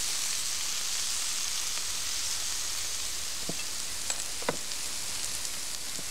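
Chanterelle mushrooms sizzling in a hot frying pan, a steady hiss. A few light knife taps on a wooden chopping board come around three and a half to four and a half seconds in, as rosemary is chopped.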